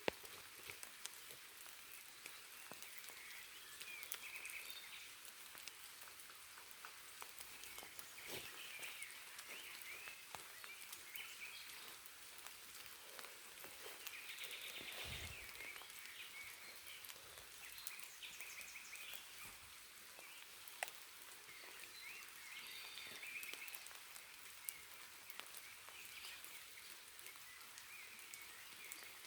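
Steady rain falling in a forest, with scattered nearby drops ticking and short bursts of high calls from small animals coming and going. A brief low rumble about halfway through.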